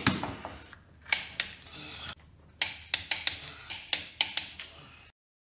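Click-type torque wrench working the cylinder-head stud nuts up to 40 ft-lbs: a string of sharp metallic clicks, some single and some in quick runs, as the wrench ratchets and releases at the set torque. The sound cuts off suddenly near the end.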